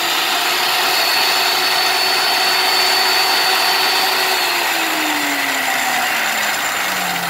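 Electric motor of a mini metal cut-off (chop) saw running free with no load, a steady high whine; about four and a half seconds in it is switched off and the pitch falls as it spins down.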